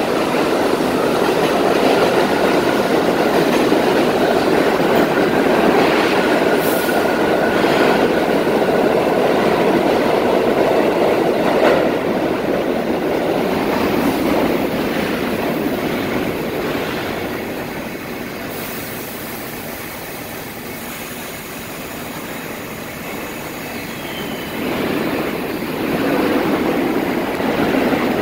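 New York City subway train running through the station: a steady rumble of wheels on rail with a thin wheel squeal. It fades after about twelve seconds as the train pulls away, then train noise builds again near the end.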